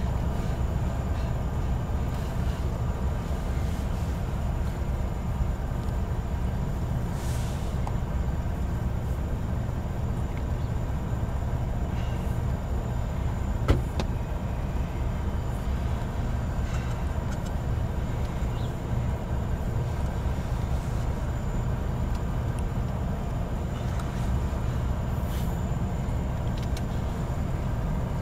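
Diesel-electric locomotives idling: a steady low engine drone with a faint steady whine above it, and one sharp click about halfway through.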